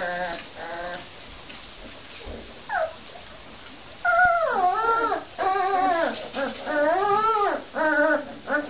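Young Cane Corso puppies whimpering: a few short whimpers at first, then, from about halfway, a run of long whines that waver up and down in pitch.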